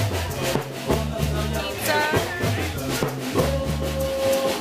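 Live band music: a drum kit keeping a steady beat over a repeating bass line, with a long held note near the end.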